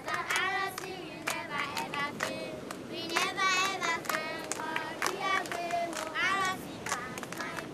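High-pitched voices singing in short phrases over sharp claps.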